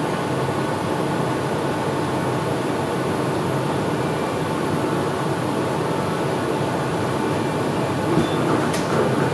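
Steady running noise of a moving train heard from inside the carriage: an even rumble with hiss, and a couple of faint clicks near the end.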